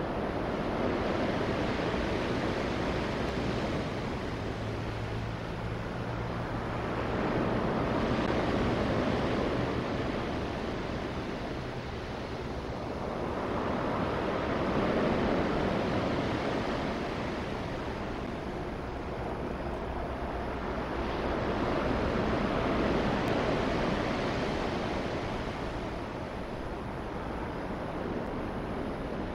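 Ocean surf breaking on a pebble beach, a steady rush that swells and fades about every seven seconds as each wave comes in.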